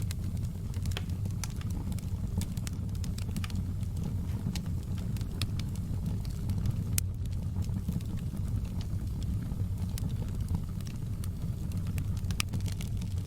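Wood fire burning in a fireplace: irregular sharp crackles and pops scattered over a steady low rumble of the flames.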